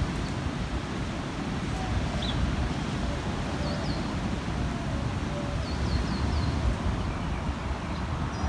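Wind on the microphone, a steady low rumble, with a few faint bird chirps now and then.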